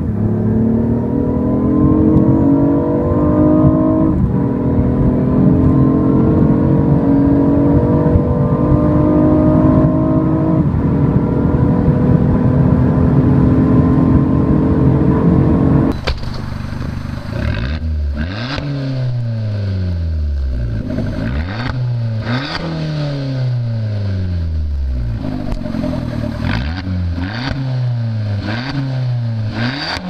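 A BMW i8's 1.5-litre turbocharged three-cylinder engine accelerating hard through the gears, heard from inside the cabin, its pitch climbing with two upshifts. About halfway through it cuts to an Abarth 500 T-Jet's 1.4-litre turbocharged four-cylinder being revved in repeated blips, each rising and falling.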